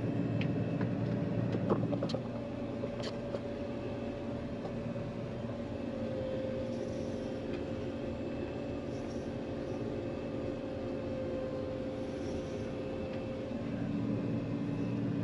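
John Deere 9500 combine's six-cylinder diesel engine running steadily while the machine creeps through a tight gap. Its tone drops a little about two seconds in and comes back up near the end. A few sharp clicks or knocks are heard in the first three seconds.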